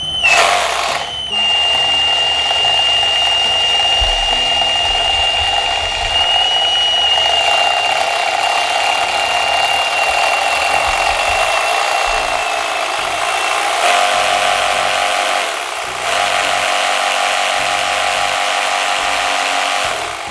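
Xenon CDRS1845 18 V cordless reciprocating saw running with no blade fitted, a steady motor whine with the rattle of the reciprocating drive. It stops briefly about a second in, changes tone and dips for a moment about three-quarters of the way through, and cuts off at the end.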